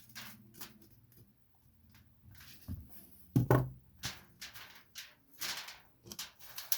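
Scattered short scrapes, taps and clicks of hands working material on a workbench top, with one heavy thump about three and a half seconds in.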